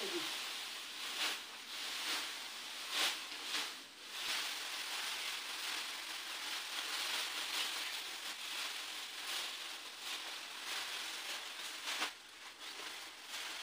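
Dry paddy straw rustling and crackling as armfuls are carried and laid out on the floor for threshing, with a few louder swishes as bundles are dropped or shaken.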